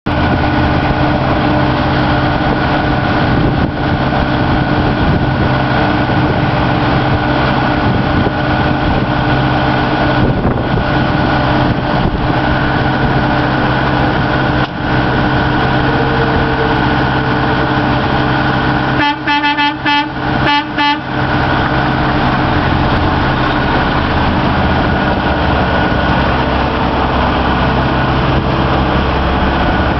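Semi-truck diesel engine running steadily, with a horn giving three or four short toots about two-thirds of the way through.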